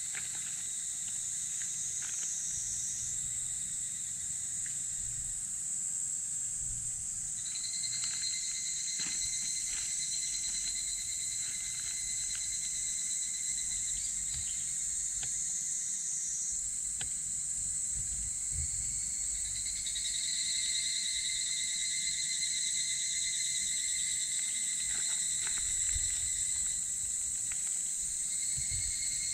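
A steady, high-pitched chorus of insects. A second, lower buzzing insect song joins about a quarter of the way in and carries on, with a few faint ticks and a low rumble underneath.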